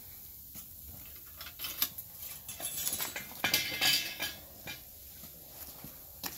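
Metal foundry tools clinking and scraping on pavement beside a crucible, with a dense stretch of clattering about three and a half seconds in.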